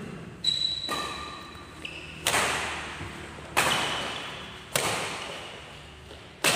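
Badminton rackets striking a shuttlecock in a doubles rally: five sharp hits, about one every second and a half, each echoing briefly in the hall.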